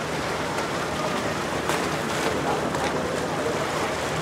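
Steady outdoor waterfront ambience of wind and water, with a low steady hum and faint distant voices.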